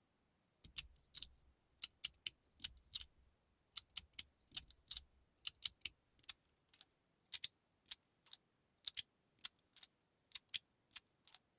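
Crunchy Fidget Boy magnetic fidget sliders being slid back and forth, each stroke snapping the plates into place with a sharp click. The clicks come about two to three a second, often in close pairs, as the encapsulated-magnet slider and the two-piece slider are tried in turn.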